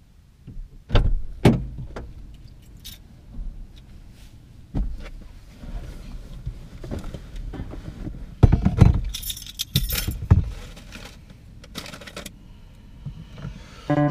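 A person getting into a car's driver's seat: scattered knocks, thumps and rustling from the seat and door, with a bunch of keys jingling about nine seconds in.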